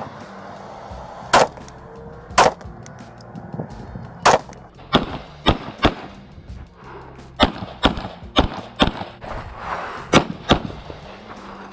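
Pistol shots fired one at a time, about a dozen spread unevenly, several in quick pairs about half a second apart, over low background music.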